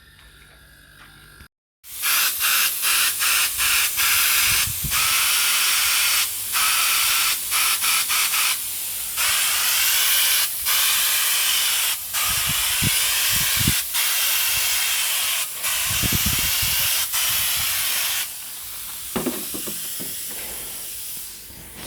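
Air spray gun hissing, fed by a homemade compressor made from an old fridge compressor and a drum. The hiss starts about two seconds in, is broken by many short gaps, and turns softer near the end.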